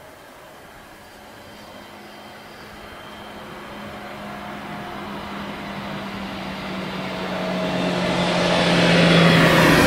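A motor vehicle approaching, its engine hum and road noise growing steadily louder over about nine seconds. The engine note drops slightly near the end.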